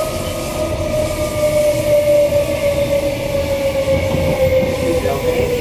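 Queensland Rail EMU electric train heard from inside the car: a steady rumble of wheels on the track under a motor whine that falls slowly in pitch as the train slows for a station.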